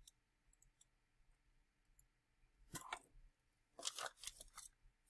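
Faint computer mouse clicks: a short burst about three seconds in, then a quick cluster of several around four seconds in. Otherwise near silence.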